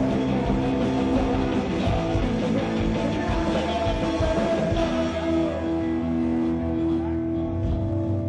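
Rock music with guitar. From about five seconds in it settles into long held notes.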